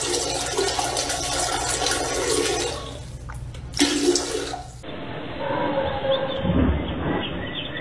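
A toilet flushing: rushing water for nearly three seconds, a brief lull, then another second of rushing that cuts off abruptly a little past halfway. After that, a duller, quieter background with a faint steady hum.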